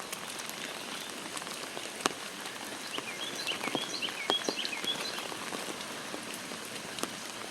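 Steady rain falling, with single drops ticking sharply now and then. A small bird chirps a quick run of notes in the middle.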